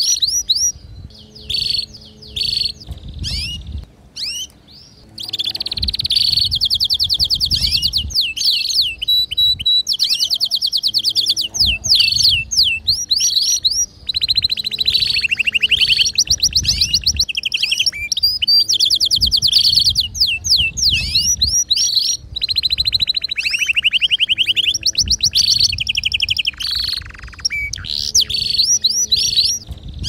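Male domestic canary singing a long varied song: fast rolling trills of rapidly repeated notes alternating with sweeping chirps, broken by a few short pauses.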